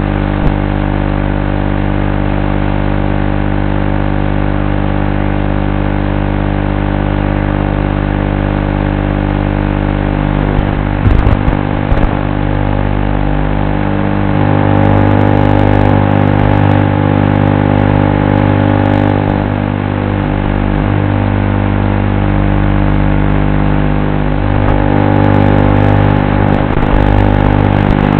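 FPV quadcopter's electric motors and propellers whining steadily in a dense stack of tones, getting louder about halfway through and again near the end as the throttle goes up.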